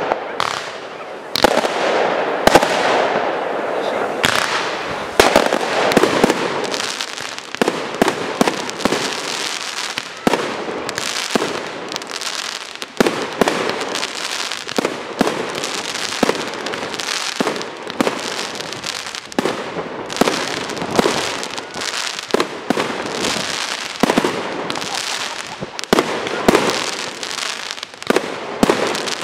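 Aerial fireworks shells bursting in a continuous barrage: many sharp bangs, some in quick clusters, over a steady crackling hiss from the burning stars.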